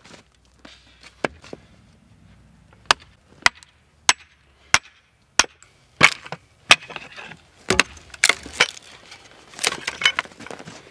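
A hatchet striking into the end grain of a block of wood, about a dozen sharp knocks roughly every half second, splitting a thin flat board off the block. Near the end the strikes come closer together with splintering cracks as the board comes away.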